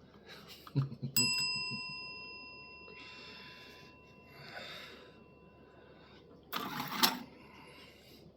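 A small metal bell rung once by a cat pressing it with his chin, about a second in, giving a clear high ring that fades over about five seconds; it is the cat's signal for more food. A brief rustle follows near the end.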